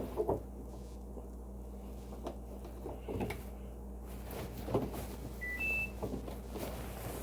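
Scattered light knocks and clicks over a steady low hum, with two short electronic beeps about five and a half seconds in, the second higher in pitch than the first.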